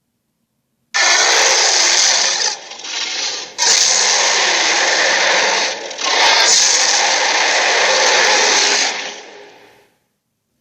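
Dinosaur roar sound effect: a loud, harsh, rasping roar that starts suddenly about a second in, drops back twice briefly, and fades out near the end.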